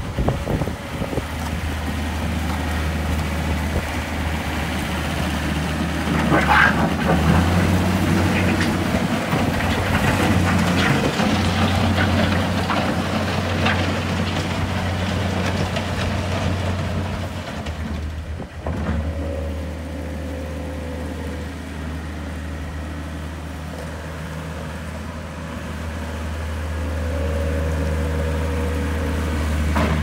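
John Deere CT332 rubber-tracked skid steer's diesel engine running steadily under load as the machine drives and turns, with clanks and rattles from the tracks and bucket through the middle stretch. The engine note dips briefly about two-thirds of the way through, then steadies again.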